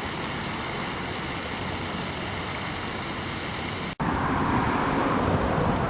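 Steady rushing outdoor background noise, with no calls or voices. It drops out briefly about four seconds in and comes back louder.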